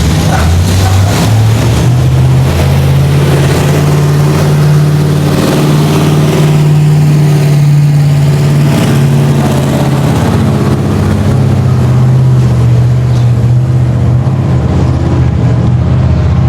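A vehicle engine running close by: a loud, steady low hum that shifts a little in pitch.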